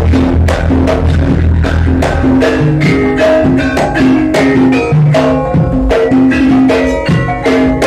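Loud music with drums and struck, pitched percussion playing a quick, steady beat.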